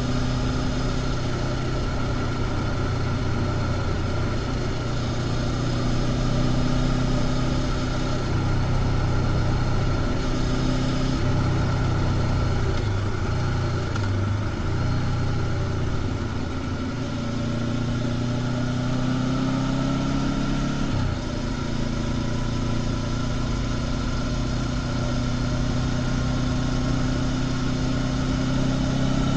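Honda CB500X's parallel-twin engine through its stock exhaust, cruising at a steady pace. Its pitch wavers a little in the middle, climbs for a few seconds, drops abruptly at an upshift about two-thirds of the way through, then holds steady again.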